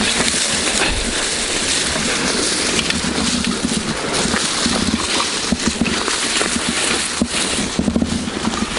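Walking through deep untrodden snow and tall dry weeds: dead stems and leaves crackling and brushing against clothing and the camera, with irregular crunching footsteps in the snow.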